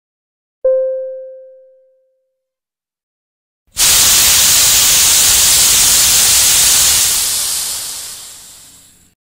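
A single chime rings out and dies away over about a second. About four seconds in, a loud hiss of escaping steam starts suddenly, holds for a few seconds, then fades away near the end.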